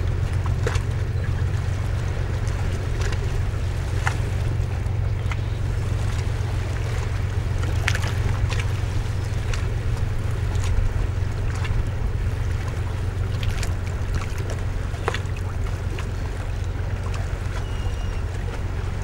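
Harbour ambience: a steady low rumble with scattered faint ticks over it.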